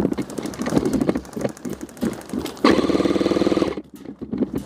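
Airsoft electric gun firing on full auto: a fast, even rattle of shots, then a louder continuous burst about two and a half seconds in that lasts about a second.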